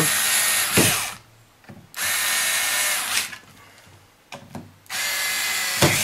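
Cordless electric screwdriver driving small screws into a plastic base plate, in three runs of about a second each with short pauses between.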